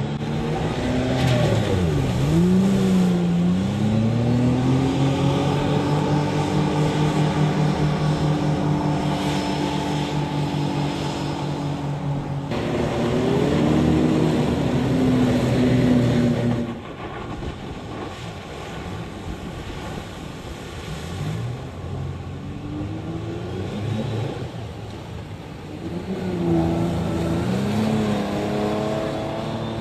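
Car engine revving: its pitch dips and climbs, holds at high revs for several seconds, then falls away. There are abrupt changes about twelve and seventeen seconds in, after which it runs quieter, with further rises in pitch near the end.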